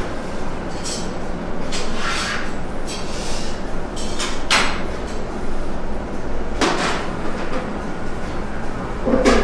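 Steady hum of a small food shop's room ambience, with a handful of short clatters and rustles. The sharpest comes about midway.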